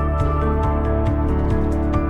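Background music: sustained held chords over a steady low beat of about two beats a second.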